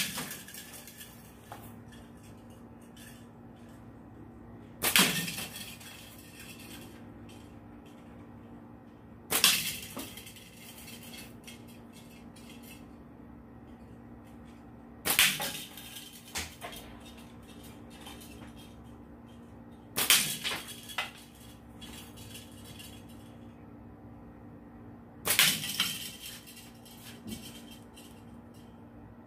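Shots from a slingshot improvised from small pliers and flat rubber bands: six sharp cracks roughly five seconds apart, each followed by a brief rattle of fainter clicks.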